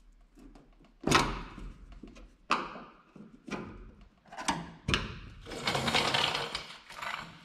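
Screwdrivers being pulled out from between a school bus's steel side panel and rub rail: a series of sharp metal knocks and clacks. A longer scraping rustle comes near the end.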